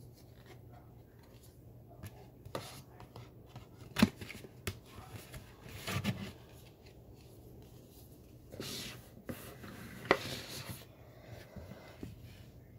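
Hands handling CDs and their plastic cases on a tabletop: scattered clicks and taps, the sharpest about four seconds in, with soft rustling a little past the middle, over a faint steady low hum.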